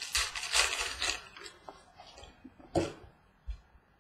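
Trading cards being handled on a table: a dry rustling and sliding for about the first second and a half, then a few light taps, with one sharper click a little before three seconds in.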